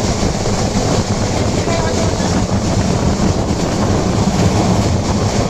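Train running along the track: a steady, loud rumble with a low hum underneath.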